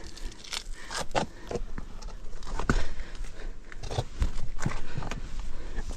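Irregular scuffing footsteps and scrapes, with a few dull knocks, from people moving about on rock and ground.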